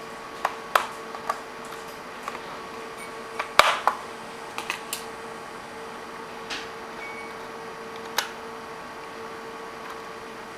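Scattered small clicks and taps from hands working on a laptop's underside during a RAM swap, with the loudest cluster about three and a half seconds in, over a steady faint hum.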